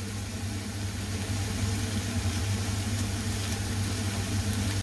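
Minced garlic sizzling in olive oil in a pan, under a steady low hum. The sound cuts out for an instant near the end.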